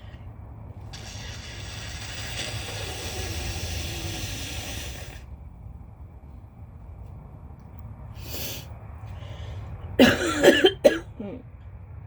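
A person blowing their nose hard for about four seconds, then a short breath through the nose, then three loud, wet, phlegmy coughs in quick succession near the end.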